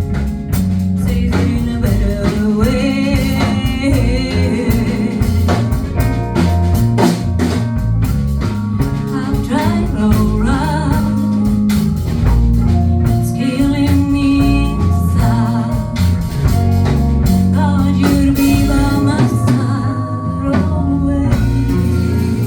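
Live band playing a song: singing over a drum kit and other instruments. A few seconds before the end the drums drop out, leaving held notes ringing.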